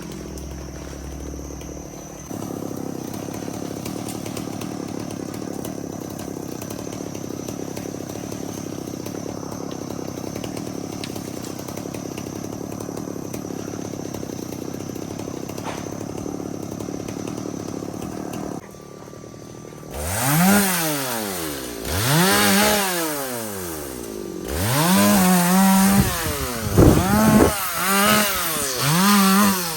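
Two-stroke chainsaw running steadily for most of the time, dipping briefly, then revved up and down over and over in the last ten seconds, its pitch rising and falling with each throttle blip.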